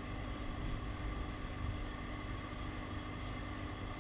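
Steady low background hum with a few faint constant tones, no sudden sounds and no rhythm.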